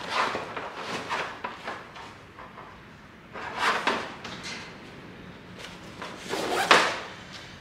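Cordura nylon pack and its webbing straps rustling and swishing as they are handled and turned over on a table, in three main bursts about three seconds apart.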